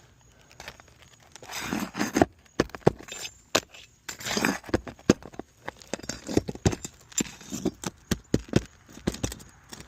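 Brittle roof shingle being worked loose by hand, giving a string of sharp cracks and clicks with two short stretches of scraping rustle; the sharp cracking goes with a shingle so brittle it breaks just from being held.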